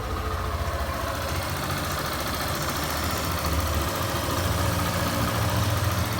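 Freshly rebuilt Yamaha Fazer 150 single-cylinder engine idling steadily on its first start, held a little fast while it warms up. It runs quietly: the earlier knock from a scuffed piston and worn timing chain is gone.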